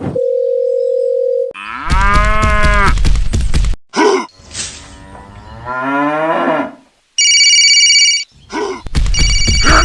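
Cattle mooing: two long lowing calls, the first loud with a deep rumble under it, the second rising and falling in pitch. Before them is a short steady beep, and near the end an electronic ringing tone sounds twice.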